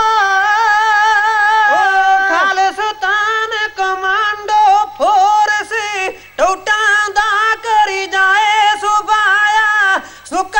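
A man singing kavishari, Punjabi sung poetry, in a high, strong voice over a PA, holding long notes with a wavering pitch in phrases broken by short breaths, with no instruments heard. A faint steady hum runs underneath.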